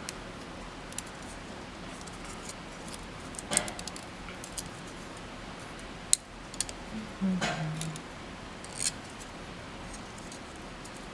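Small, scattered clicks and scratches of 3D-printed plastic support material being picked and snapped off a printed part, a few sharp ticks several seconds apart, with a short low hum about seven seconds in.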